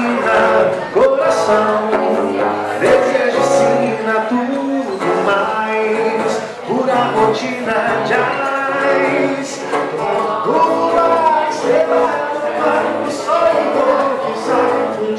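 Two men singing a song together, accompanied by an acoustic guitar.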